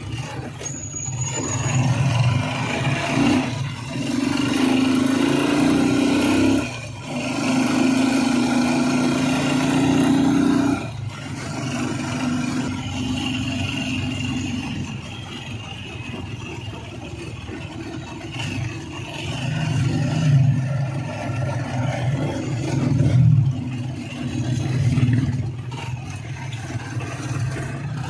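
Tricycle's motorcycle engine running under way, heard from inside the sidecar, with road and traffic noise. The engine note pulls steadily and drops away sharply three times in the first eleven seconds, then runs on more evenly with a few swells.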